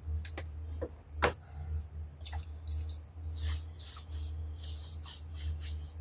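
Hands kneading whole-wheat atta dough and scraping flour across a steel plate: rubbing and scraping noises, with a few sharp taps in the first second and a half, the loudest about a second in. A steady low hum runs underneath.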